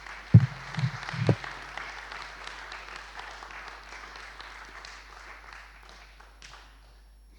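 Congregation applauding: a dense patter of many hands clapping that tapers off and ends about six and a half seconds in. Three short, loud, low sounds stand out in the first second and a half.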